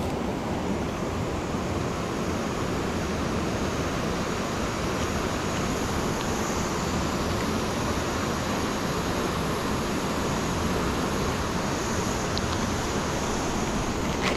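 Steady rushing of a shallow river flowing over rocks and small rapids.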